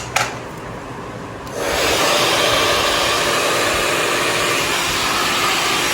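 Two sharp clicks, then about a second and a half in a handheld hair dryer switches on and blows steadily with an even rushing noise.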